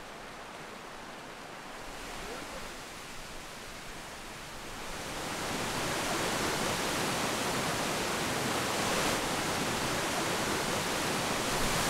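Rushing water of a forest stream, a steady hiss, quieter at first and louder from about five seconds in, where a small cascade pours over a log.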